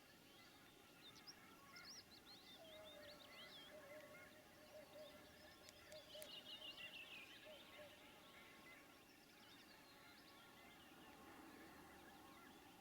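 Faint chorus of many small birds chirping and twittering, busiest in the middle of the stretch, over a light outdoor hiss.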